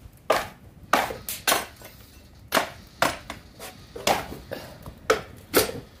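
Bamboo poles burning in a firebox, cracking and popping sharply about a dozen times at irregular intervals.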